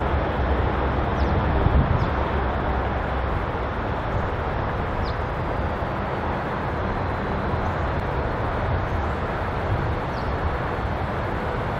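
A lashup of 81 Class diesel-electric locomotives, each with an EMD two-stroke V16, working a loaded grain train as it approaches: a steady low engine rumble under an even hiss.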